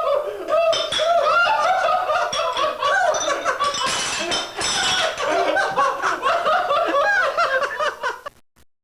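Women laughing hard and continuously, high-pitched giggles and cackles with a breathier stretch about four seconds in; the sound cuts off suddenly near the end.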